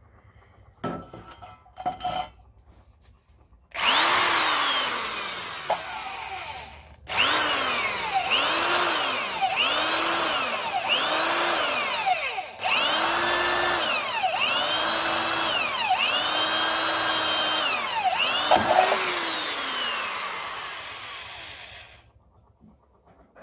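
Ryobi 110 V corded electric drill, a single-speed, forward-only model, drilling steel. A few knocks come first. The motor then starts and winds down once, and runs in about ten short surges, its whine rising and falling each time, before it stops near the end.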